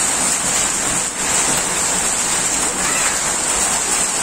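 Heavy rain mixed with small hailstones pelting a wet concrete yard: a steady, even hiss.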